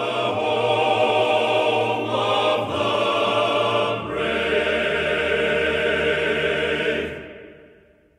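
Outro music with a choir singing sustained chords, shifting a few times, then fading out over the last second or so.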